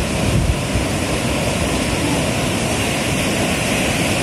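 Steady roar of heavy sea surf, with strong wind rumbling on the microphone.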